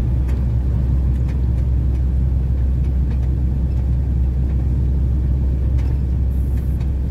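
Heavy truck on the move: a steady low engine drone with road noise.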